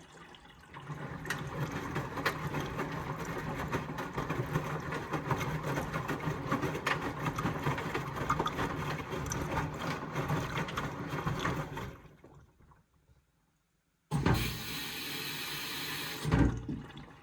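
Indesit Express 15 washing machine's drum turning during a rinse, water sloshing with small clicks and knocks. The sound fades out about twelve seconds in, cuts to silence, and starts again abruptly about two seconds later.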